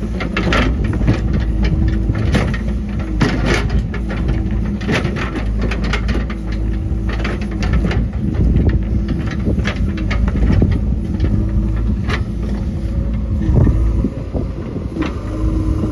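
JCB 3DX backhoe loader's diesel engine running under load, with a steady low rumble, a tone that rises and drops away every couple of seconds, and frequent sharp knocks and clatter.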